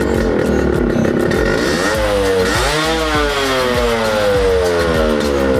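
Yamaha RX-Z's single-cylinder two-stroke engine, freshly rebuilt and running through a four-speed model's silencer. The throttle is blipped once about two seconds in, and the revs then sink slowly back toward idle.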